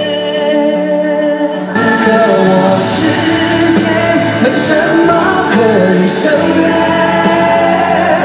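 Live concert music: two male voices singing over a full band. A sustained held chord breaks off abruptly about two seconds in, and a different song takes over with the duo singing its verse.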